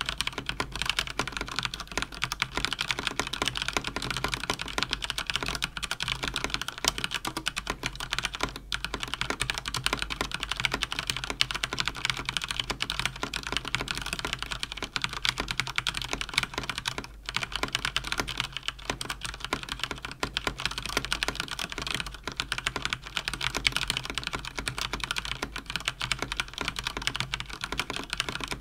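Fast typing on a Cougar Attack X3 RGB mechanical keyboard with linear Cherry MX Speed switches: a dense, continuous stream of key clacks. It breaks off briefly about 9 seconds in and again about 17 seconds in.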